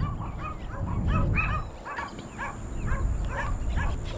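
Several dogs barking over and over, a few barks a second overlapping one another, with a low rumble underneath.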